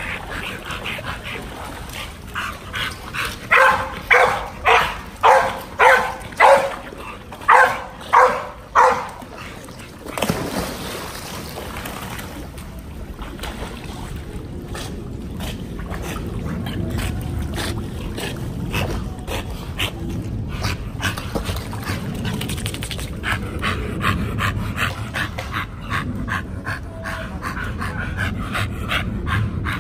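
Pit bull giving a quick series of loud, high barks, about two a second for several seconds, followed by a splash and water noise.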